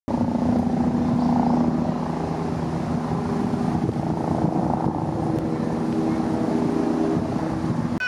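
Noon bell ringing: sustained low tones that hold and shift in pitch, cut off suddenly at the end.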